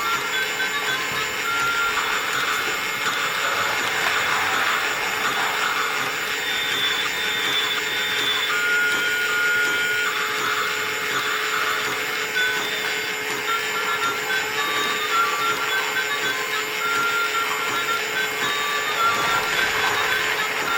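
Battery-powered toy train running on its plastic track with a steady motor whir. Short electronic tones from its sound-effects chip come and go over it.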